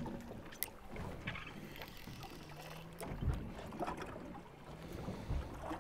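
Sound on a fishing boat at sea: water lapping at the hull and wind on the microphone over a low steady hum, with two dull thumps about three and five seconds in and a few light clicks early in the first second or so.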